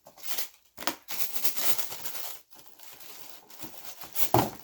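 Paper and cardboard being handled: irregular rustling and crinkling as a shoebox is opened and its packing paper moved, with a sharper knock near the end.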